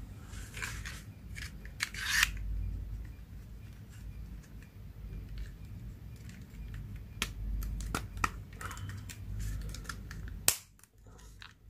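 Scattered sharp plastic clicks and rubbing as a butane utility lighter's metal barrel and plastic handle are pressed and fitted together by hand. The loudest clicks come about two seconds in and near the end.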